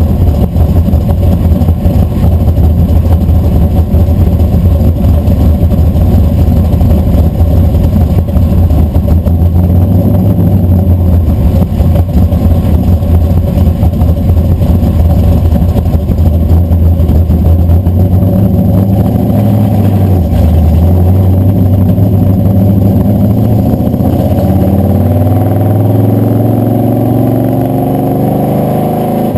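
Blueprint Engines 540 cubic-inch big-block Chevy V8 idling loudly, heard from beneath the truck close to the exhaust. About 24 seconds in the truck pulls away and the engine note climbs in pitch.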